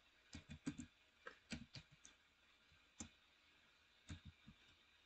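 Faint computer keyboard keystrokes: about a dozen sharp clicks in irregular small groups as a word is typed.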